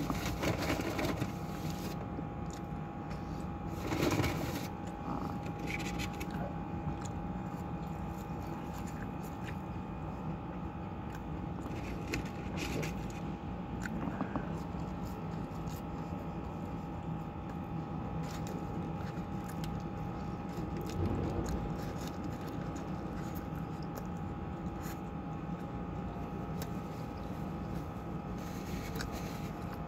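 Someone chewing a fast-food burger and fries, with the crinkle of the burger's paper wrapper now and then and a louder rustle about four seconds in. Under it runs a steady buzzing tone and a low hum.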